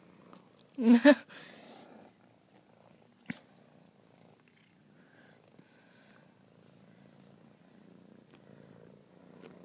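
Domestic cat purring right against the phone's microphone, a steady low rumble. About a second in there is a brief, louder pitched sound, and a single sharp click comes a couple of seconds later.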